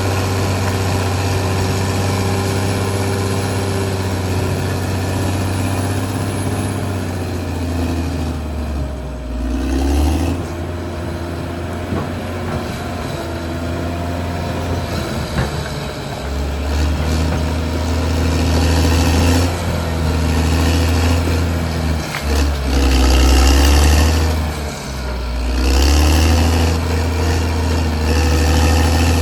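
Caterpillar D6R XL bulldozer's diesel engine running, its note dropping back and rising again several times as the load changes, with a couple of brief knocks.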